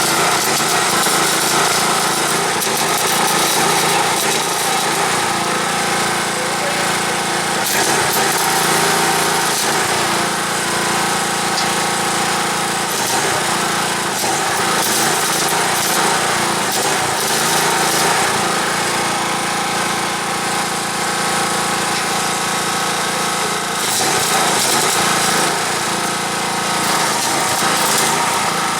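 Small engine running steadily, with a constant dense hiss over it.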